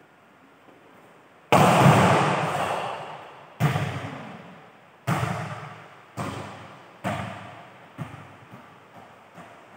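A volleyball bouncing on a hard indoor court floor: one loud first bounce, then several more that come quicker and quieter as it settles. Each bounce rings out in a long echo through the large metal-roofed hall.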